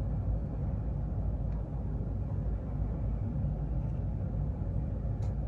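Steady low background rumble, with a couple of faint clicks.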